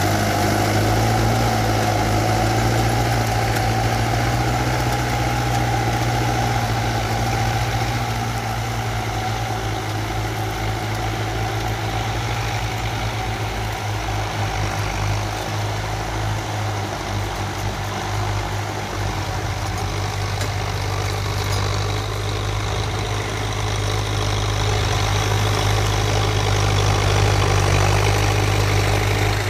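Belarus tractor's diesel engine running steadily while pulling a disc plough through the soil, with a strong low hum that grows louder near the end.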